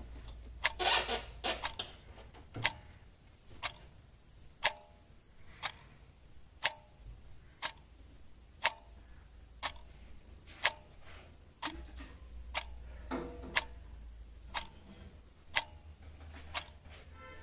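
Clock ticking steadily, about once a second, with a short rustling noise about a second in.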